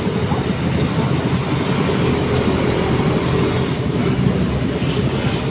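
Large vehicle's engine running with a loud, steady rumble.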